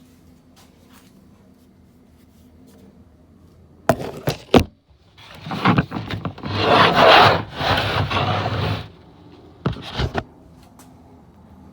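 Hands working on a laptop during a hard drive swap: a few sharp clicks and knocks, then about four seconds of loud scraping and rubbing of plastic and metal parts, then two more knocks.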